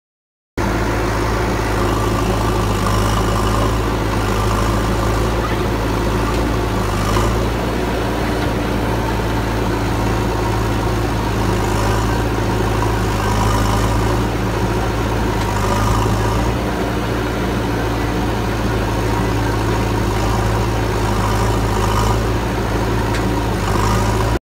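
JCB backhoe loader's diesel engine running steadily while it works, a constant low drone.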